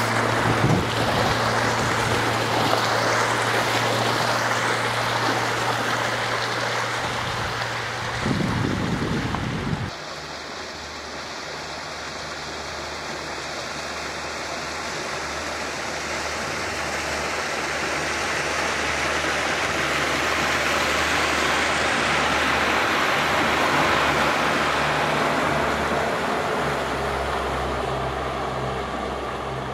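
Small outboard motor running steadily, driving an inflatable boat across the water, with water rushing and splashing along the hull. About ten seconds in the sound changes to a quieter, lower engine hum with water lapping close by, which grows louder and then eases off near the end.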